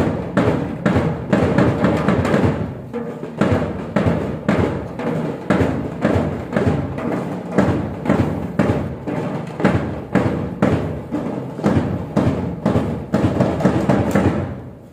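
Drums beating a steady, repeating rhythm of several strokes a second in short phrases, dying away just before the end.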